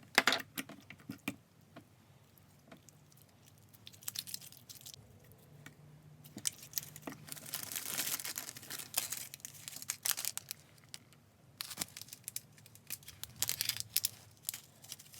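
Hands kneading and pulling over-activated slime: irregular sticky crackles and tearing, busier and louder in a stretch around the middle.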